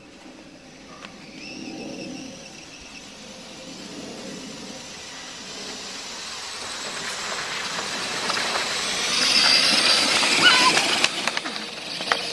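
Stock brushless motor and drivetrain of a Traxxas E-Revo RC truck running with a high-pitched whine as it pulls a plastic sled over packed snow, growing steadily louder as it comes close and passes about ten seconds in.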